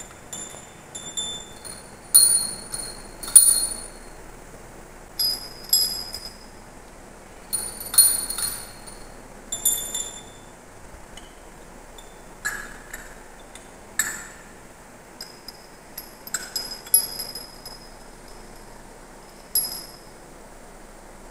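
A cluster of small brass temple bells struck and jangled by a child's hand, clinking against one another with short, high ringing tones. The strikes come in irregular clusters every second or two, with short gaps between.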